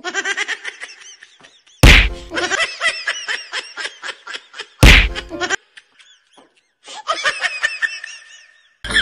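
Comedy sound-effect track: rapid, high-pitched laughter in short chunks that cut in and out abruptly, with two loud whack hits about three seconds apart.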